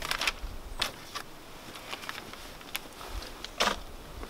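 Scattered rustles, scuffs and a few light clicks from a person moving and handling gear, the loudest rustle about three and a half seconds in.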